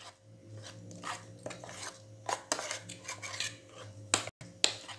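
Metal spoon stirring a thick gram-flour batter in an enamel bowl, with irregular clinks and scrapes as it knocks against the bowl's sides.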